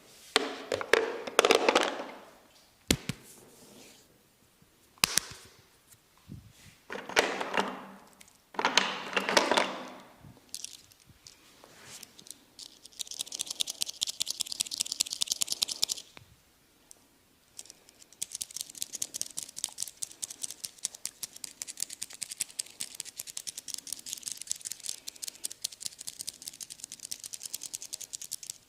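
Close-miked hand massage: several rubbing strokes of a second or two each with a few sharp slaps or clicks. Then a long run of fast, fine crackling ticks from hands working close to the microphone, which pauses briefly about two thirds of the way through.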